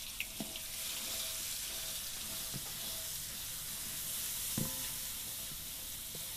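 Ground rawon spice paste sizzling steadily in hot oil in a pan, with a few light knocks of the cooking utensil.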